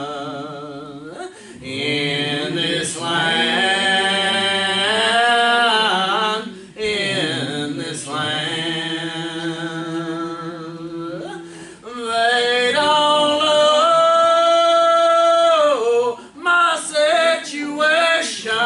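Gospel singing: a voice holds long notes with vibrato, in phrases separated by short breaths.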